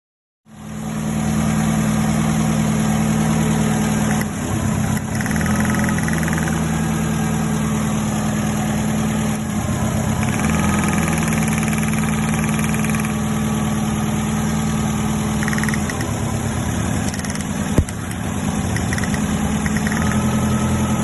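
Ford 1.3 Endura-E four-cylinder pushrod engine idling steadily, its tone shifting slightly every few seconds, with one sharp click about 18 seconds in.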